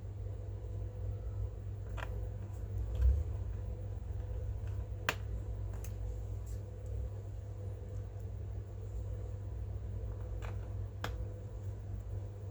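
Scattered sharp clicks and taps of small hard parts being handled on a laptop during a RAM upgrade, a few seconds apart over a steady low hum.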